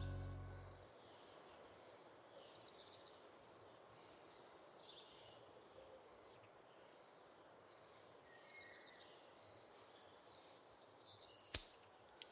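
Near-silent room tone with a few faint, brief bird chirps from outside, as background music fades out in the first second. A single sharp click comes near the end.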